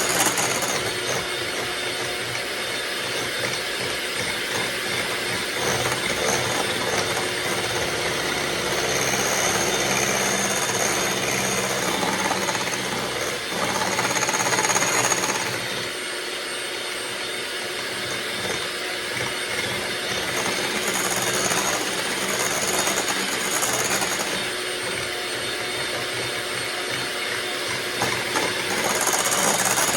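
Electric mixer whisking egg whites in a bowl, running steadily at speed with slight rises and falls as the beaters move through the foam.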